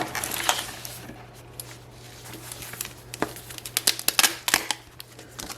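Keyboard packaging and spare plastic keycaps being handled during an unboxing: a rustle in the first second, then scattered sharp clicks and taps.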